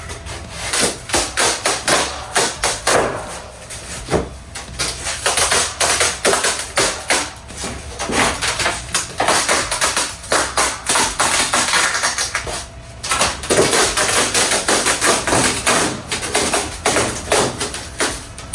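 Old fiberglass skin being pried and torn off a surfboard's foam blank: many irregular sharp cracks and taps with stretches of tearing hiss.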